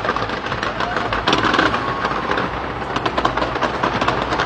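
Fireworks going off in a dense, continuous barrage of rapid cracks and pops.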